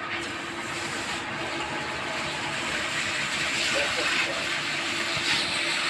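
Water gushing out of the drain of a jetmatic pump's pressure tank, a steady strong rush that grows a little louder. The tank is being drained to flush it clean.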